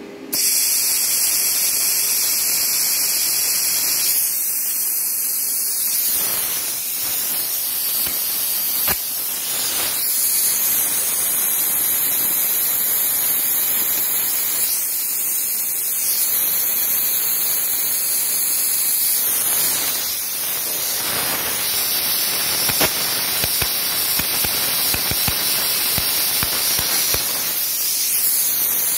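Cheap plasma cutter blowing compressed air through its torch: a loud, steady hiss that starts suddenly, with scattered sharp crackles, more of them in the second half. Sparks coming out of the cutter unit near the end suggest the crackles come from the cheap machine arcing and failing.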